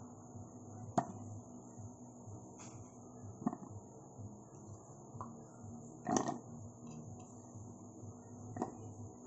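Pieces of garlic, shallot and cheese being dropped into a plastic food-processor bowl: about six light knocks against the plastic at irregular intervals, the loudest about six seconds in, over a faint steady hum.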